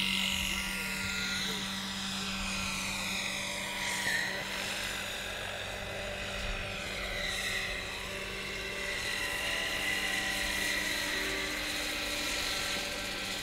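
Large electric RC scale model helicopter, a Vario SA-341/342 Gazelle with a 2.36 m main rotor, lifting off and flying: a steady electric-motor and rotor whine with blade swish, its high tones sliding up and down as the model climbs and moves about.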